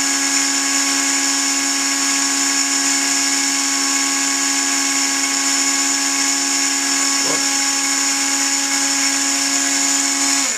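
Black & Decker RTX rotary tool running at steady speed, belt-driving a homemade tool post grinder spindle with a diamond burr: a constant high whine made of several fixed tones. It is switched off at the very end and the pitch drops as it stops.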